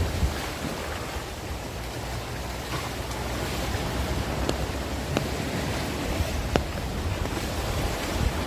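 Heavy rain falling in a steady hiss, with gusts buffeting the microphone and a few sharp taps scattered through it.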